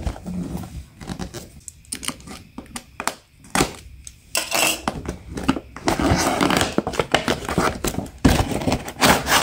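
A cardboard toy box being opened by hand: the lid and flaps scraping, rubbing and rustling, with small clicks. It gets louder and busier about halfway through.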